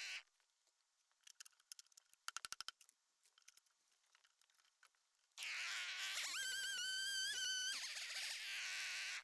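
Two-stroke Stihl chainsaw: its engine cuts out at the start, leaving quiet with a few light clicks and a quick rattle of taps. About five seconds in, a chainsaw runs again; its whine climbs to a high steady pitch for about a second and a half, then drops back.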